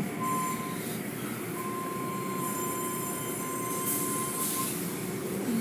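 Automatic car wash tunnel machinery running with a steady rumble and wash noise. A thin high squeal comes in briefly near the start and again, held for about three seconds, through the middle.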